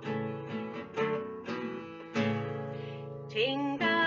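Acoustic guitar strumming chords in a steady rhythm, about two strums a second, as the introduction to a sung children's song; near the end a held sung note comes in.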